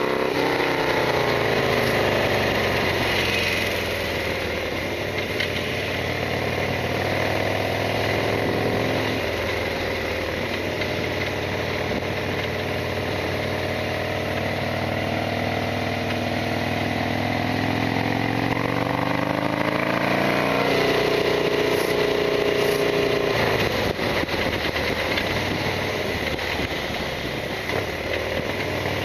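Harley-Davidson XL1200R Sportster's air-cooled V-twin running under way. Its pitch falls as it slows at the start, climbs again as it accelerates about ten seconds in and again near twenty seconds, then drops back.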